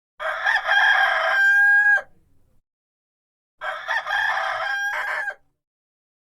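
Rooster crowing twice, with a short silent gap between. Each crow lasts about two seconds and ends on a long held note.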